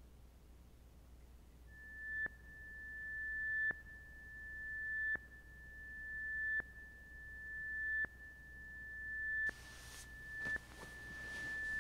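A single high electronic tone at one steady pitch, pulsing about every one and a half seconds: each pulse swells louder and then cuts off sharply. A rustling hiss joins near the end.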